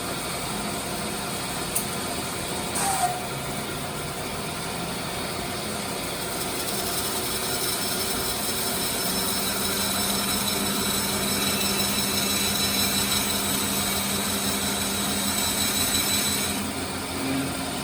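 Band saw running with its blade cutting a curve into a wooden board. A couple of brief clicks come early in the cut. The cutting grows a little louder, with a steady hum, from about halfway, then eases off shortly before the end.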